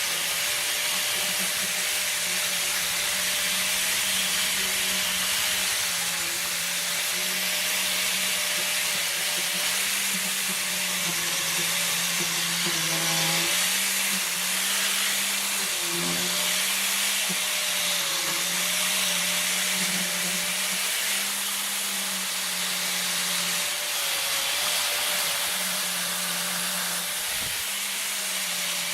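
Electric power tool running steadily, a motor hum under a constant hiss, its pitch dipping briefly a few times as it is loaded.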